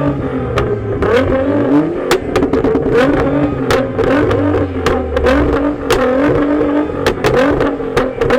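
Car engine revving up and down over and over, with many sharp pops cracking through it.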